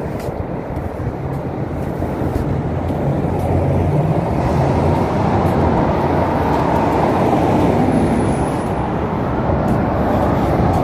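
Street traffic: motor vehicles running close by, a steady low rumble with an engine hum that grows louder about three seconds in.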